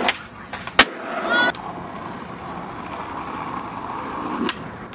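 Skateboard tricks: a loud, sharp clack of the board hitting the ground about a second in, with a fainter click just before it. Then a steady hiss, with another click near the end.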